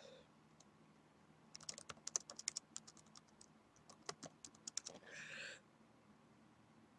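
Near silence broken by two spells of quick, faint clicks like typing, and a short faint hiss about five seconds in.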